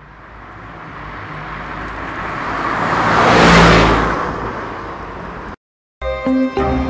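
A vehicle passing by: its noisy sound with a low hum swells steadily to a peak about halfway through, fades, then cuts off abruptly.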